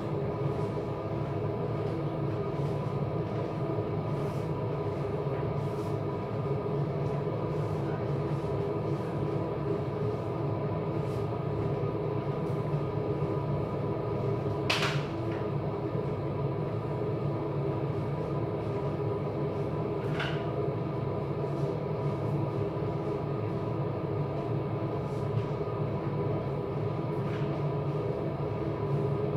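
Steady mechanical hum made of several constant tones, like an appliance motor or fan running without change. Three short, sharp knocks break through it, the loudest about halfway.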